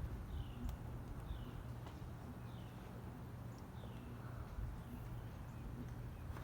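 Outdoor ambience: a low steady rumble with a bird's short, high, falling chirp repeated about once a second.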